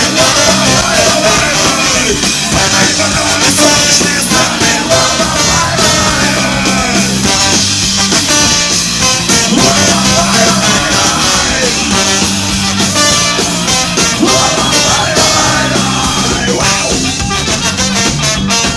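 Loud rock band music, punk-style, with singing and a steady driving beat.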